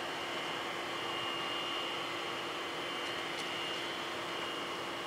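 Distant jet whine of an EA-6B Prowler's twin Pratt & Whitney J52 turbojets on landing approach: a steady hiss with a thin high whistle and a lower hum, holding level throughout.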